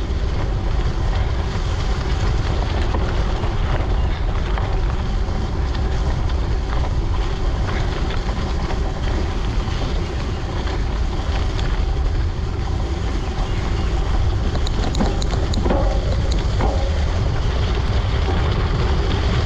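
Wind rushing over the microphone of a camera on a moving gravel bike, a steady low rumble mixed with rolling tyre noise. A few faint clicks come about fifteen seconds in.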